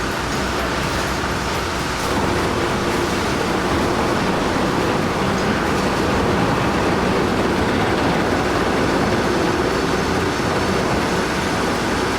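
Heavy machinery running: a steady, loud mechanical rumble and noise, a little louder after about two seconds.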